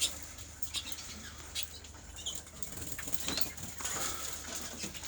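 Cock canaries moving about in an aviary flight: irregular wing flutters and light, quick ticks of hopping and landing.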